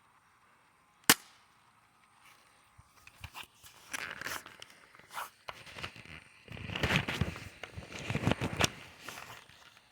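A single sharp snap of an airsoft gun firing, about a second in. This is followed by a longer stretch of scattered clicks and rustling handling noise.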